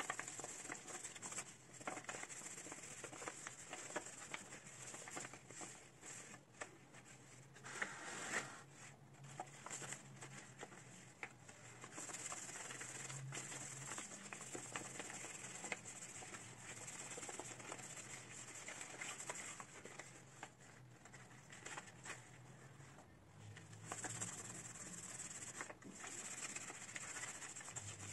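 Faint pattering and crumbling of loose potting soil and roots handled by hand during repotting of an aspidistra: many small irregular ticks and rustles over a light hiss.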